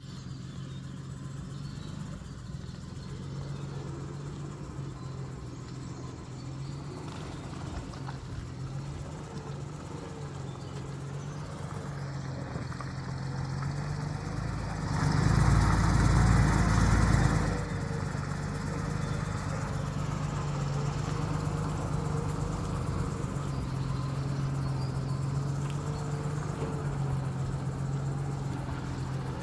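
Dodge M37 military truck's flathead straight-six engine running at low speed as the truck crawls over a rutted track. The steady engine note grows louder as the truck approaches and is loudest for a couple of seconds about halfway through, as it comes right up close.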